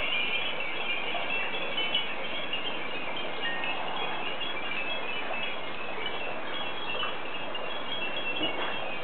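Hundreds of glass furin wind chimes ringing together in a strong wind, a dense, unbroken mix of many short, high, clear tones overlapping.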